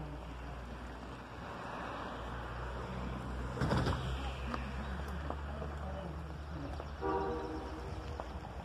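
Distant 1925 Baldwin 2-8-0 steam locomotive pulling away: a low steady rumble, with one short chime whistle blast about seven seconds in. The uploader guesses the whistle is a Crosby.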